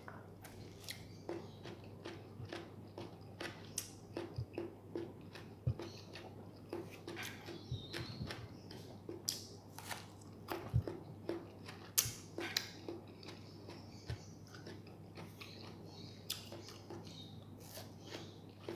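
A person chewing raw tomato close to the microphone: irregular wet mouth clicks and smacks, several a second, over a faint steady low hum.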